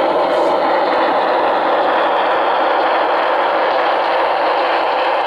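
HO-scale Union Pacific Big Boy 4-8-8-4 model steam locomotive running close by with its sound system on: a steady, dense rushing sound with no separate beats standing out.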